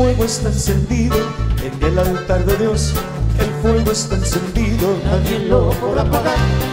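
Live conjunto band playing a gospel song, with button accordion, guitar, electric bass and drums over a steady bouncing beat, and voices singing the melody.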